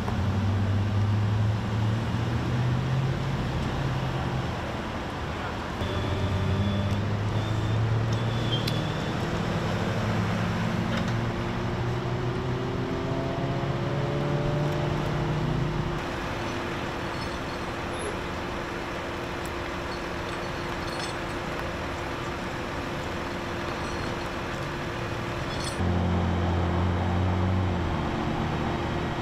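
Road traffic and vehicle engines humming steadily, with a low engine drone that shifts between shots and a few short gliding engine tones in the middle.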